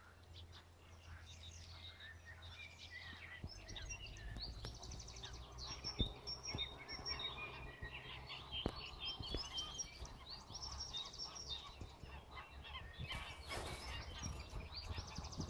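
Chorus of small songbirds singing and chirping in many overlapping phrases and trills, over a low steady rumble.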